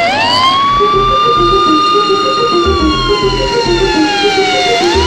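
Siren wailing: it rises quickly, holds, falls slowly, then rises again near the end. Under it runs background music with a thudding bass beat.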